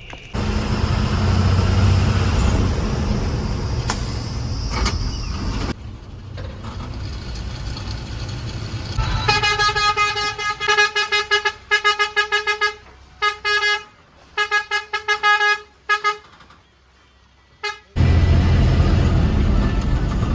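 A heavy diesel engine runs loudly, then a vehicle horn sounds in a long series of rapid short toots with a few longer blasts. The engine comes back in abruptly near the end.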